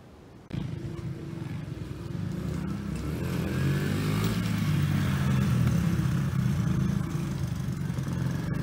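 Small off-road motorbike engine running and revving, its pitch rising and falling. It comes in abruptly about half a second in and is loudest in the middle.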